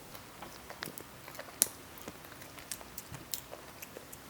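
A person chewing food with mouth clicks and smacks: many small irregular clicks, with one sharper click about one and a half seconds in.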